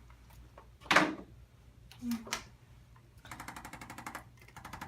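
Handheld electric percussion device tapping rapidly and evenly against the patient's back in short runs. There is a single loud knock about a second in.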